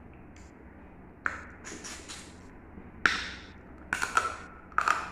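Cooked crab-leg shell cracking and crunching between teeth: a sharp crack about a second in, a louder one about three seconds in, and a quick cluster of cracks near the end.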